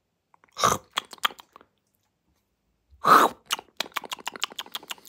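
French bulldog eating off a spoon: twice, about two and a half seconds apart, a loud mouthful is taken, each followed by quick wet lip-smacking and chewing, several smacks a second.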